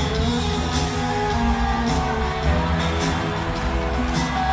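Live rock band playing, with electric guitars over the band and a steady beat.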